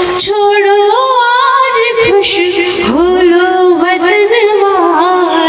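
A woman singing Hindi poetry to a tune into a stage microphone, holding long notes with a wavering, vibrato-like pitch and ornamented melodic turns.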